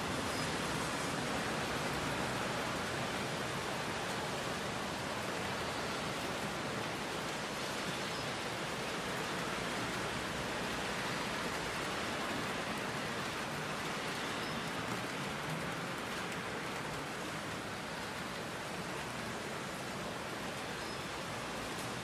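Steady rain falling, an even hiss with no thunderclaps.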